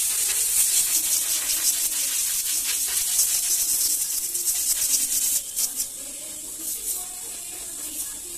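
Loud steady hiss of a pressurised jet, dropping to a lower level about five seconds in.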